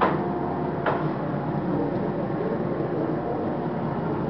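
A steady mechanical hum with a faint steady tone, broken by two sharp knocks about a second apart near the start.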